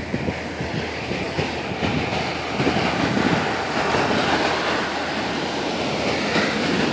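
Ocean surf washing up the beach, a steady rush of breaking waves that swells a little after the first couple of seconds.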